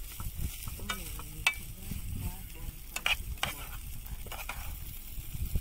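Fried rice being stirred and scraped around a metal pot with a plastic rice paddle as it fries, with a few sharp knocks of the paddle against the pot, the loudest about one and a half and three seconds in.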